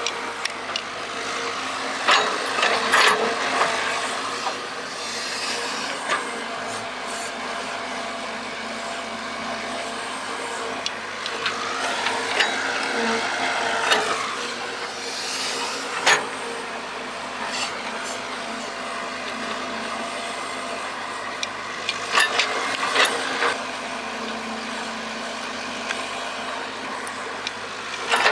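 Excavator running steadily while digging, with a whine that rises and falls about halfway through as the hydraulics work. Sharp knocks and clanks come at several points, loudest early on and again near the end.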